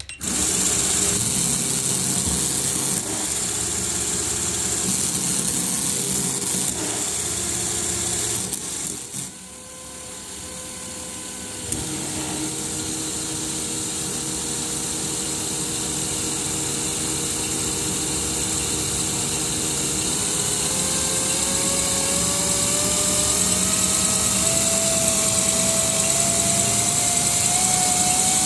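Lego Technic V16 engine model and gearbox driven by a small electric motor, starting suddenly and running with a busy mechanical clatter of plastic parts. It goes quieter for a few seconds about nine seconds in and picks up again with a click. In the second half the motor's whine climbs steadily in pitch as the supply voltage is raised from 17 V toward 27 V.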